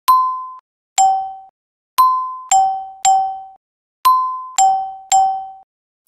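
Eight bright chime notes struck one at a time, moving between a higher and a lower pitch, each ringing briefly and dying away.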